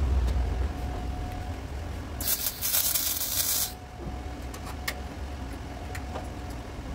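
A welder's arc hisses and crackles in one burst of about a second and a half, starting about two seconds in, over a steady low hum. A couple of light taps follow.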